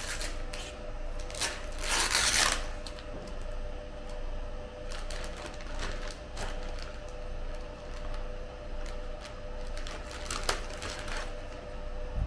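Clear plastic bags crinkling and rustling as they are handled and opened, in two louder spells, about two seconds in and again near the tenth second. A steady hum runs underneath.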